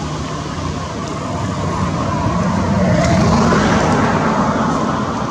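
Engine noise of a passing motor vehicle, a steady rumble that swells about three seconds in and then eases off.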